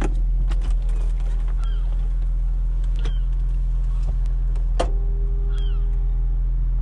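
Audi S5 convertible's power soft top folding open: several mechanical clicks and clunks as the tonneau cover lifts and the roof stows, with a short steady whine from the roof mechanism near the end, over a steady low hum.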